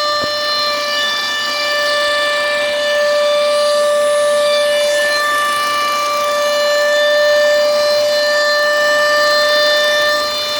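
A 2005 Volvo S80's running engine giving off a loud, steady, high-pitched whine, heard close up under the open hood. The owner places it at or around the intake and suspects the throttle body or a pulley.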